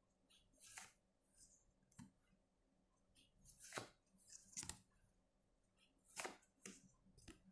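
Faint, scattered snaps and swishes of tarot cards being handled and laid out, about seven short strokes over several seconds.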